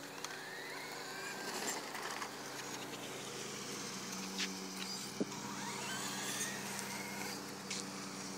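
Electric radio-controlled trucks running, their motors whining up and down in pitch as the throttle is worked, with a few sharp clicks, the sharpest about five seconds in.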